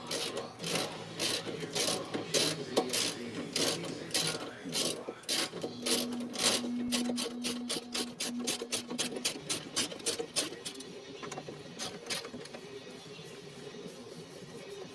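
Ratchet wrench clicking in quick runs of strokes as running board mounting bolts are tightened. The clicking thins out and stops about eleven seconds in.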